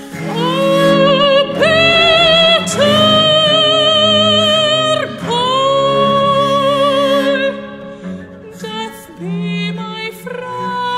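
A female voice sings long, high held notes with vibrato over the low bowed notes of a viola da gamba. After about eight seconds the singing breaks into shorter, quieter phrases.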